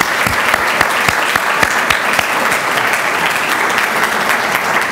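Audience applauding: many hands clapping in a dense, steady patter that starts to fade at the very end.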